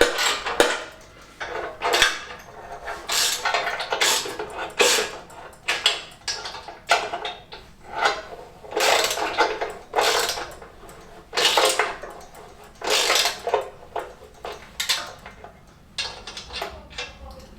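Sheet-metal fan tinware of a Fiat 500 engine being handled and worked into place, giving irregular metallic clanks and scrapes, roughly one every second or so.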